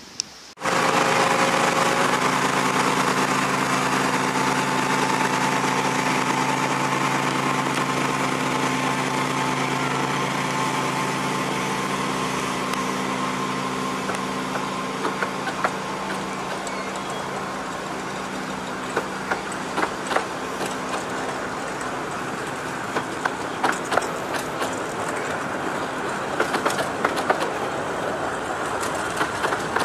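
Diesel locomotive of a 15-inch gauge railway running with a steady engine hum that starts abruptly and slowly fades as the train moves off. From about halfway, the coach wheels click over the rail joints, more and more often toward the end.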